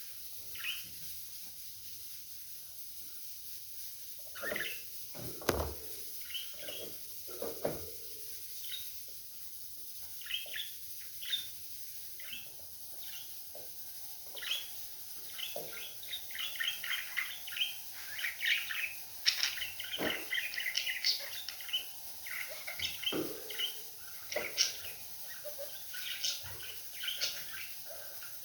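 Budgerigars chirping and warbling in quick short notes, sparse at first and becoming a busy chatter from about halfway. A few knocks sound in the first third.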